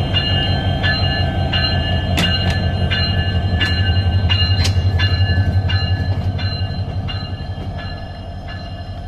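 Bangladesh Railway diesel locomotive moving slowly forward over the points. The engine runs with a pulsing low drone, and its wheels click over the rail joints about twice a second under a steady thin high whine. It is loudest about halfway through as it passes, then fades.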